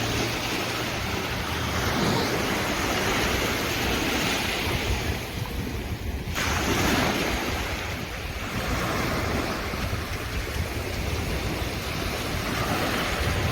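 Sea waves washing and surging, swelling and ebbing a few times, with wind buffeting the microphone.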